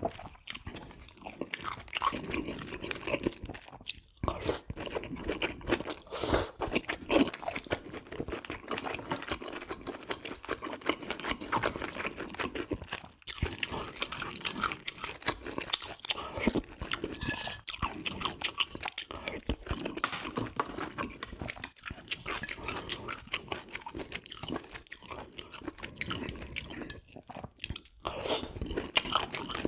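Close-miked eating: a person chewing and biting food, with steady crunching and many small, irregular crackles.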